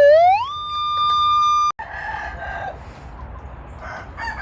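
A rooster crowing: one long call that rises in pitch, holds steady, and cuts off abruptly under two seconds in.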